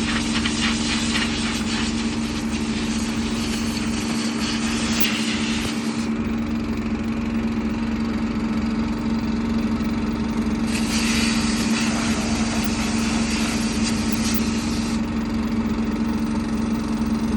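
Compressed air from an air gun blasting dirt out of air-conditioning filters and parts in long hissing blasts: one over roughly the first six seconds, another from about eleven to fifteen seconds, and a third starting near the end. A steady low machine hum runs underneath.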